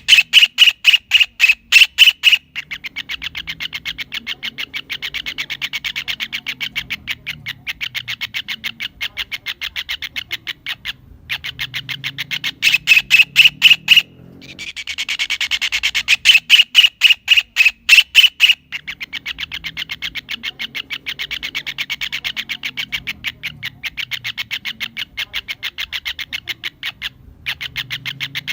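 Kingfisher calls: a loud bout of sharp, rapidly repeated notes, then a long run of softer, faster notes. The same sequence starts over about halfway through, as a looped recording does.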